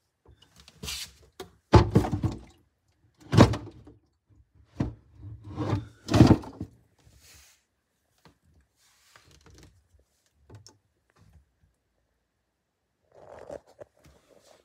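A handful of thunks and knocks, with rustling and scraping between them, from things being bumped and handled in the cabinet under the kitchen sink. The three loudest knocks fall about two, three and a half, and six seconds in. Then only faint ticks and a short rustle near the end.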